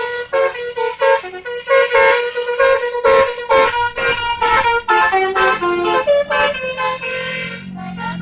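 A bus's Basuri 'telolet' musical horn playing a quick tune of short notes stepping up and down in pitch. A low rumble comes in near the end.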